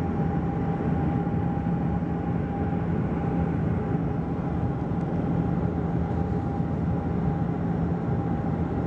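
Cabin noise of a Bombardier Q400 turboprop on final approach: the steady drone of its Pratt & Whitney PW150A engines and propellers, heard inside the cabin beside the propeller, with a low steady hum and a higher steady tone over an even rush of air.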